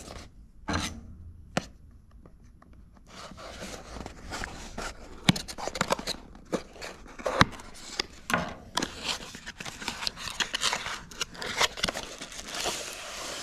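Small paperboard retail box being opened by hand. A few light clicks come first. From about three seconds in, the end flap scrapes and clicks as it is pried up and bent back, then there is rubbing and rustling as fingers reach in and pull the contents out.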